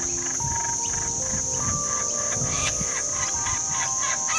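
Laughing kookaburra starting its call, a run of quick chuckles that build up from about halfway through, over a steady high-pitched insect buzz.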